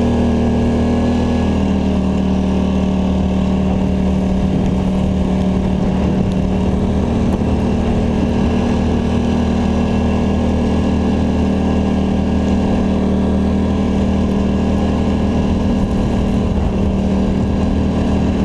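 Polaris Scrambler ATV engine running at a steady speed under load while pushing through deep snow.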